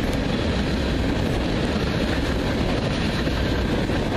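A freight train of tank cars rolling past close by, a steady rumble of wheels on the rails.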